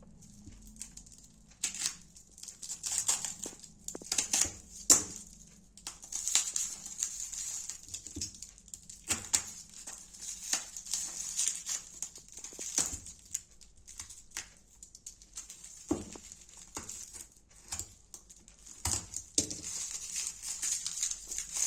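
Packaging being handled and opened: plastic crinkling and tearing, with irregular clicks and taps throughout.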